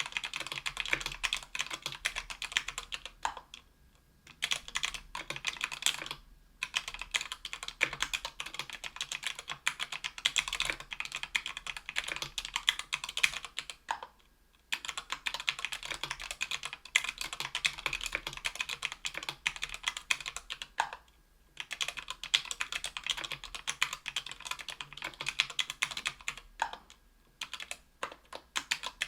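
Steady typing on a 60% aluminium-plate mechanical keyboard with stock, unlubricated JWK Rara 62g tactile switches: fast runs of sharp key clicks and clacks, broken by several short pauses.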